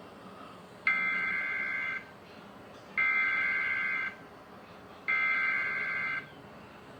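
Emergency Alert System SAME header data tones: three identical bursts of warbling two-pitch digital tone, each about a second long, separated by about a second of quiet, starting about a second in.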